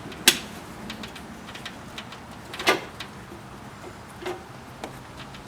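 Airbox and intake boot being worked into place by hand. There is a sharp knock about a quarter second in, a longer knock with a scrape just before three seconds, and a few lighter taps after.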